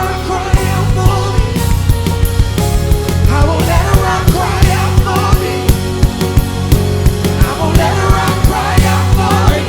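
Live worship band music with a steady drum beat over sustained bass notes, with wavering melodic voices or lead lines on top.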